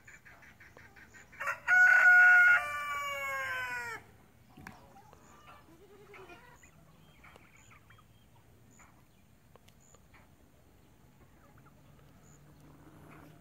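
Rooster crowing once, loud, about a second and a half in, the long last note sliding down in pitch at the end. Faint scattered calls of farm birds follow.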